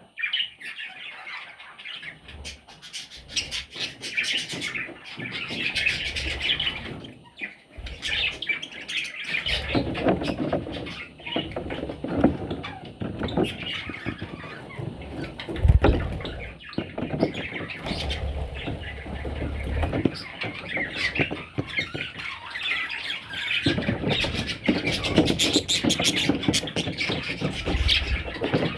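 Baby budgerigars chirping and squawking continuously, with rustling and an occasional low thump from the chicks moving about.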